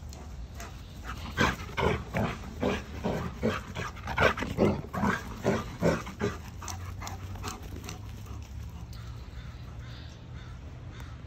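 Bouvier des Flandres puppy making her happy noises as she runs flat out: short sounds about three a second that stop about six seconds in.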